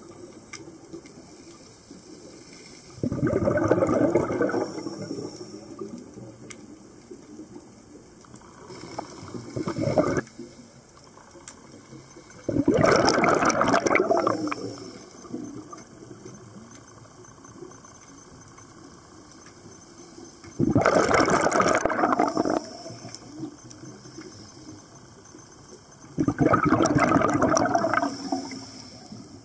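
Scuba regulator exhaust bubbles heard underwater: a loud gush of bubbling every few seconds, five in all, lasting a second or two each, with a quiet hiss between.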